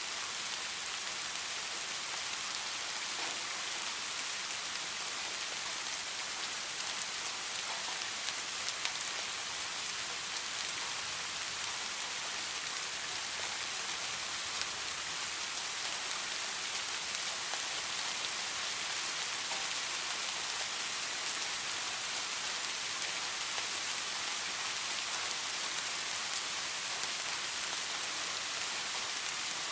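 Steady rain falling, an even hiss with a few sharper drop ticks; no thunder.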